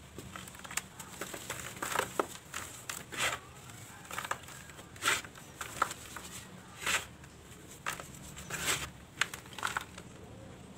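Dry, dusty cement balls crushed and crumbled by hand, with irregular gritty crunches about once a second and powder sifting between them.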